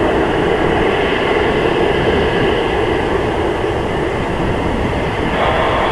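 Jet engine noise from an Airbus A330-900neo's Rolls-Royce Trent 7000 turbofans at climb thrust, a steady loud rumble heard from behind as the airliner climbs away after takeoff.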